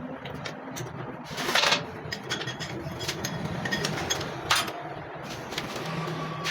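Metal tools and motorcycle parts clinking and knocking now and then, the loudest clanks about a second and a half in and again past four seconds, over a low workshop hum.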